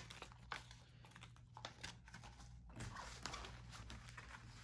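Faint, scattered rustling and crinkling of paper and the plastic-film-covered diamond painting canvas as it is handled and unrolled.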